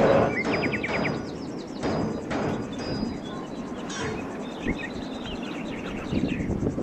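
Background music with a percussive beat.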